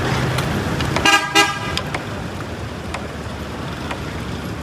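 A vehicle horn honks twice in quick succession about a second in, over steady street traffic noise.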